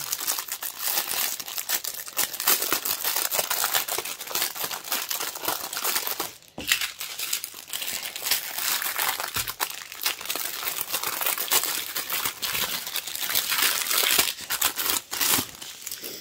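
Small clear plastic bags of square diamond-painting drills crinkling as they are handled and sorted, with a short pause about six and a half seconds in.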